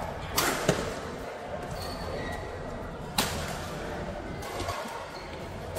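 Badminton rackets hitting a shuttlecock in a singles rally: three sharp hits about two and a half seconds apart, with background voices.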